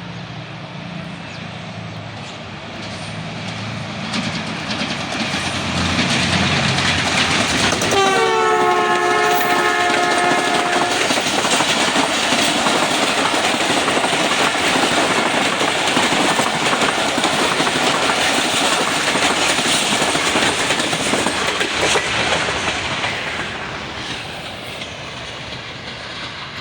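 A Pakistan Railways express passenger train hauled by a diesel locomotive runs past at speed. The locomotive's engine drone builds as it approaches, and about eight seconds in its multi-tone horn sounds one blast of about three seconds. Then the long rake of coaches rushes and clatters by on the rails, fading near the end.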